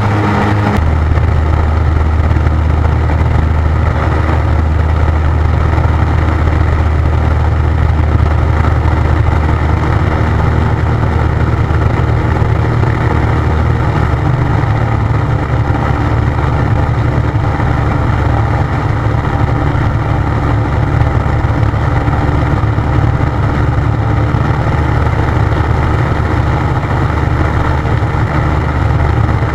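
Light aircraft's engine and propeller droning steadily in flight, with rushing wind noise over the cockpit. The engine note changes around halfway through.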